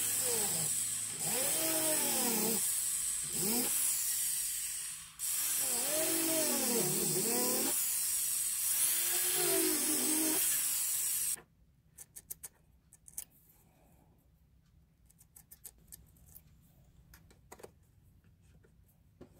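Rotary handpiece with a small burr grinding texture into the silver collar of a wooden spoon handle, its whine rising and falling in pitch several times as it works. It cuts off suddenly about eleven seconds in, leaving only faint clicks of the piece being handled.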